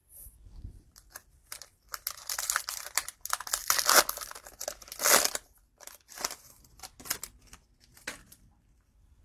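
Cellophane wrapper of a trading-card cello pack being torn open and crinkled, a dense run of crackling from about two to five and a half seconds in, then a few shorter, sharp crinkles.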